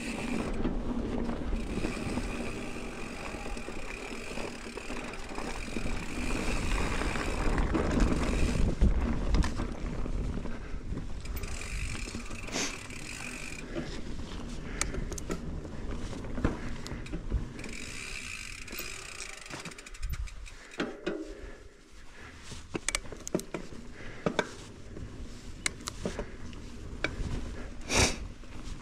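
Mountain bike riding down a dirt trail: the rear hub's freewheel buzzes in stretches of a second or three while coasting, over steady tyre and trail noise. Rattles and short knocks come from bumps, with a sharp knock near the end.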